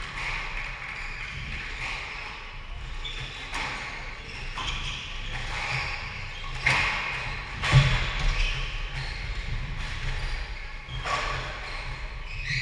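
Squash rally: the ball struck by rackets and smacking off the court walls about once a second or so, with the loudest hits a little past halfway, along with players' footsteps on the wooden court floor.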